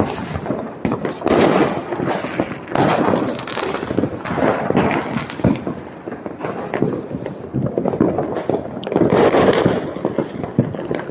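Many firecrackers and fireworks going off without a break, overlapping bangs and crackles with several louder swells.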